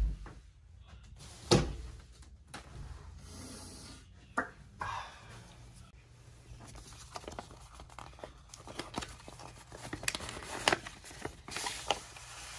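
Paper rustling and sliding as a manila clasp envelope is handled and opened and a sheet of paper is drawn out, with scattered small clicks and scrapes that are busiest near the end. A single thud comes about a second and a half in.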